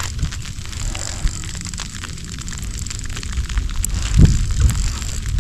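Wind rumbling on the camera microphone in a snowstorm, with scattered crackling ticks like wet snow and graupel striking it, and a louder low thump or splash about four seconds in.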